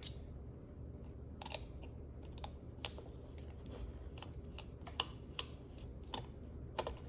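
Small screwdriver tightening tiny screws on a drone's gimbal camera assembly: faint, irregular clicks and light scrapes.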